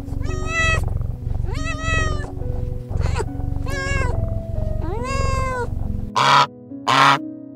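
Domestic cat meowing about five times, each meow rising then falling, over steady background music. Near the end come two short, loud, harsh bird calls.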